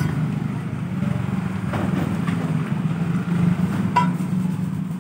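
Small engine running steadily with a low hum, growing a little louder towards the end. A sharp metallic clink sounds about four seconds in.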